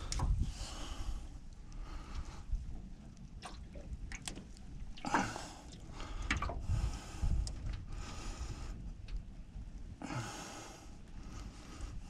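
A man breathing hard in noisy breaths, in and out every second or two, the strongest about five seconds in, with a few small clicks and knocks as he handles the fish and lip grips.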